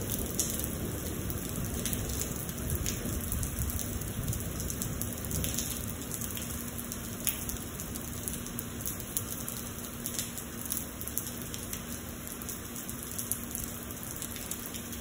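Steady rain during a thunderstorm: an even hiss of rain falling on the ground, with scattered single drops ticking close by.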